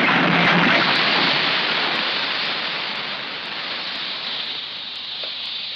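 Steam hissing from the boiler of a 1770 Cugnot steam fardier: a steady rush, loudest about a second in, that slowly fades.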